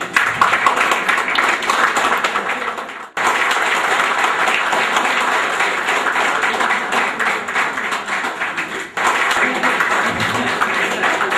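Audience applauding, a dense steady clatter of many hands, which cuts off abruptly about three seconds in and again near nine seconds before resuming.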